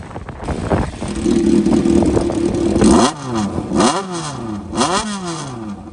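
Honda CBX400F's air-cooled inline-four revved while parked, through a brass four-into-one exhaust. It is held at high revs for about two seconds, then blipped three times in quick succession, the pitch rising and falling with each blip.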